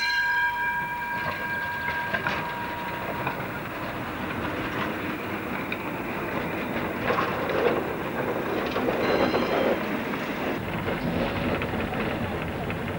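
Munich M-class tram car running on its track: a steady rumble and rattle of wheels and car body throughout. Right at the start a high ringing tone sounds and fades away over a few seconds.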